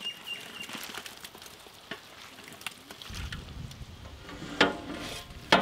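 Chunks of wet raw tuna sliding and pattering off an aluminium tray into an aluminium pot. A low rumble comes in about halfway, and there are two sharp knocks near the end.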